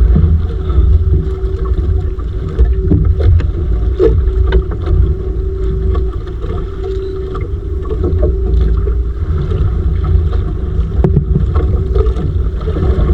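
Small fishing boat at sea: a steady low rumble with wind buffeting the microphone, a faint steady hum above it, and scattered light clicks and knocks.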